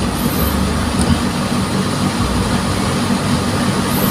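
Steady mechanical hum with a broad hiss over it, like a motor or fan running continuously.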